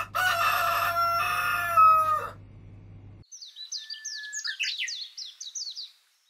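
A rooster crowing once, a long call of about two seconds that drops in pitch at the end, followed by small birds chirping in quick, repeated, falling notes.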